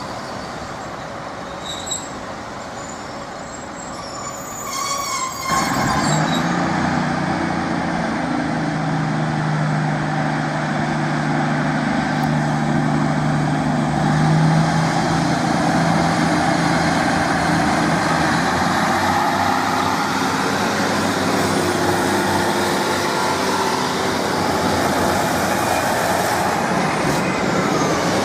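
A train running past at a station platform. It gets suddenly loud about five seconds in, then carries on as continuous rumbling noise over a steady low hum from its engine or traction motors.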